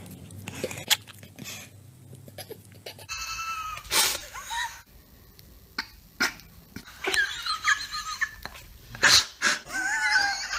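A person's stifled, squeaky giggling in short fits, with sharp breaths and a few clicks in between.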